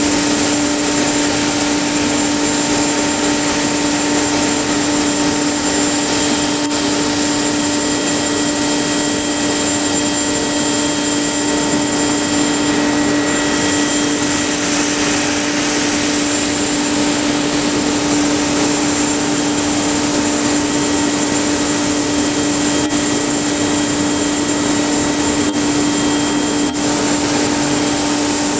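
Tyrolit Hydrostress SK-SD diamond wire saw running, its diamond wire cutting through a concrete silo wall. A steady machine whine at one constant pitch over a hiss, with no breaks.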